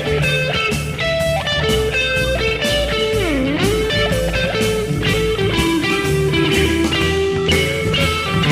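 Epiphone 335 semi-hollow electric guitar playing single-note lead lines through an amplifier. About three seconds in, one note dips sharply in pitch and comes back up.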